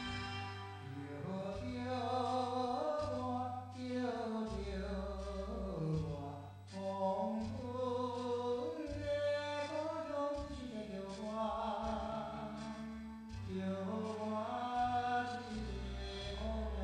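Music with singing over low bass notes.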